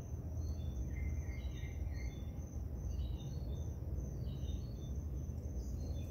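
Crickets and other night insects chirping: a steady, evenly pulsed high chirp, with shorter lower chirps in groups of two or three, over a low steady rumble.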